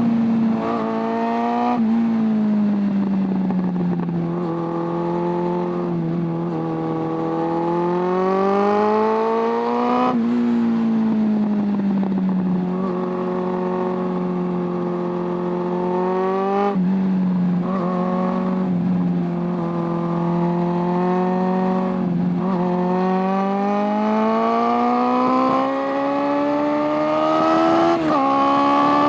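Suzuki Bandit 600's carburetted inline four-cylinder engine under way, its pitch climbing slowly under throttle and falling back several times, with a few sudden drops in pitch.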